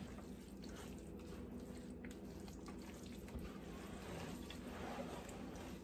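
Faint wet squishing and sloshing of broth-soaked cornbread dressing being mixed by hand in a metal pan, over a steady low hum.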